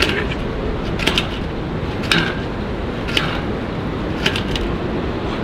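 Steady city street traffic noise, with a light click about once a second over it.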